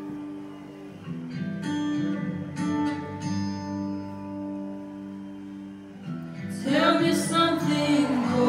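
Recorded acoustic guitar accompaniment picking and strumming a slow intro; about seven seconds in, a girl's voice comes in singing over it, louder than the guitar.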